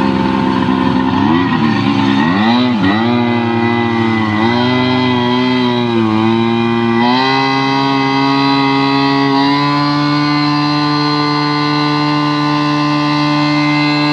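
Tohatsu V50 Rabbit fire pump engine running. Its speed dips and wavers up and down for several seconds as the throttle is worked, rises in two steps, then holds steady at a higher speed.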